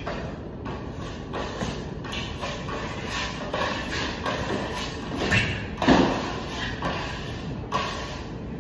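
Irregular scrapes and knocks of two plasterers working a Venetian-plaster ceiling with steel trowels from a rolling scaffold, echoing in a large hall, with a louder thump about six seconds in.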